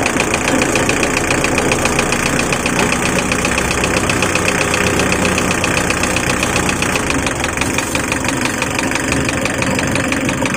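Mazda Bongo's diesel engine idling with a steady, even clatter, freshly reassembled after a cylinder head repair and running while its radiator is topped up with water.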